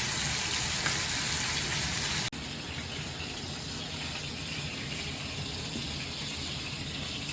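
Mutton frying in hot oil, a steady sizzle that cuts off abruptly about two seconds in, followed by a steady rush of water running from a tap.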